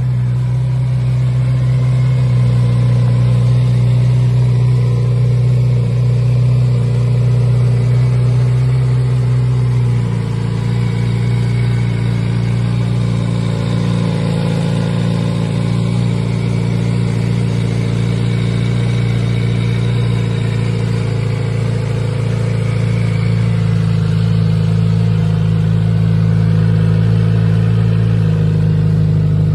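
Kawasaki Z900RS inline-four engine idling steadily through a Moriwaki Monaka long-tail aftermarket muffler. The tone shifts slightly about ten seconds in.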